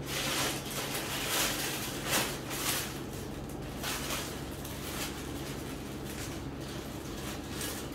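Plastic packaging crinkling and rustling as a garment sealed in a polybag is lifted out of a box and handled, busiest in the first three seconds and lighter after. A steady low hum runs underneath.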